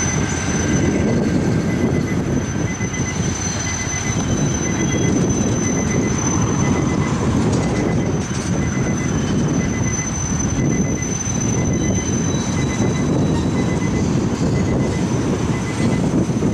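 CN freight train with EMD diesel locomotives rolling past, a steady low rumble of engines and wheels. A thin, steady high-pitched whine runs over it.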